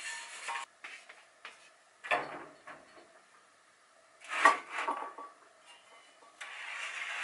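Tap water running briefly at the start, then the knocks and clatter of pots being set down on a wooden shelf, the loudest knock about four and a half seconds in. A steady hiss comes in near the end.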